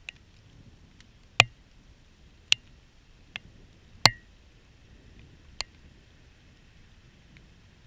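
Scattered large raindrops striking the GoPro's waterproof housing: about six sharp ticks at irregular intervals, two of them much louder, over a faint low background of the storm.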